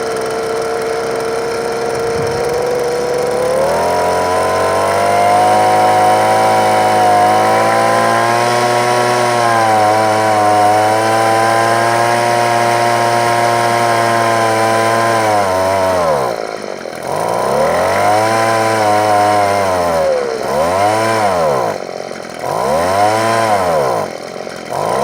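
22cc two-stroke weedeater engine running. Its pitch rises about three seconds in and holds steady, then from about sixteen seconds in the throttle is revved up and down four or five times. The owner says the engine is not working its best because a part is broken.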